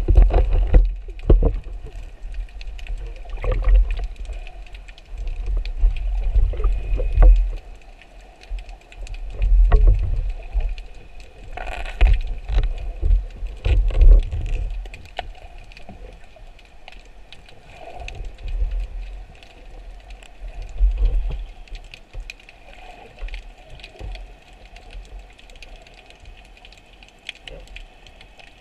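Muffled underwater noise heard through an action camera's waterproof housing: irregular low thumps and knocks from the diver moving and handling the speargun and the octopus, loudest in the first half. Small clicks and a faint steady high whine run underneath.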